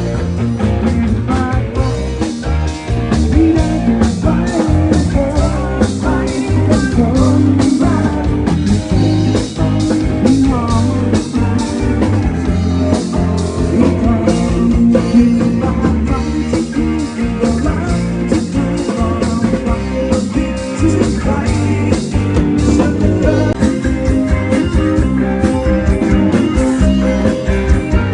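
Band playing guitar-led rock music with a steady beat, with a singing voice at times.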